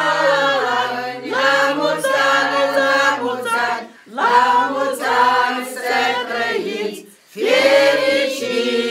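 A small group of voices singing a song together, unaccompanied, in long held phrases with short pauses for breath about four and seven seconds in.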